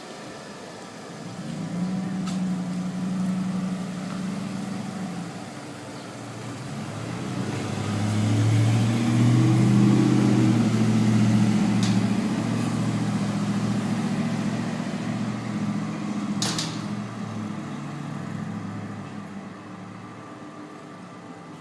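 A heavy road vehicle's engine driving past: a low note that grows louder, peaks about halfway through and fades away near the end, changing pitch in steps as it goes.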